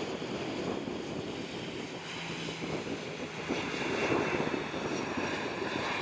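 Lufthansa Airbus A319's twin CFM56 turbofan engines running as the airliner rolls out along the runway after touchdown: a steady jet rumble with a faint high whine.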